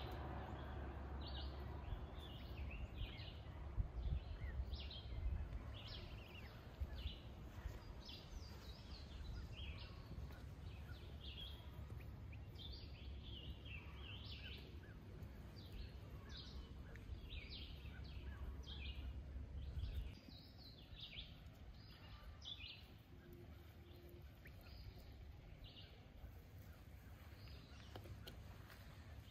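Many short, high bird chirps repeating through the woods, with a low rumble of background noise underneath that drops away about twenty seconds in.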